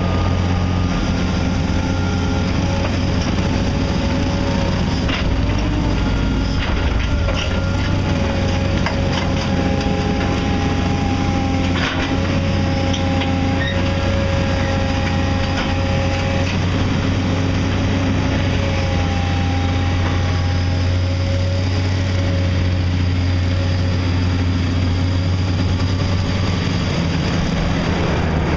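Heavy construction machinery running steadily: a deep engine hum with higher whining tones that come and go, and a few sharp knocks.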